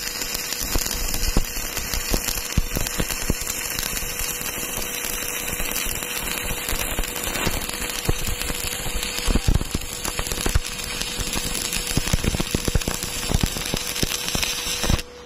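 Stick welding arc burning on small steel reinforcement rod: a continuous loud crackle and sizzle studded with sharp pops. It stops abruptly near the end.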